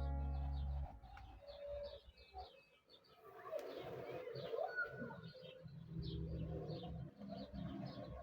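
Birds calling: short high chirps repeating about two or three times a second, with lower calls from a few seconds in. Soft ambient music stops about a second in.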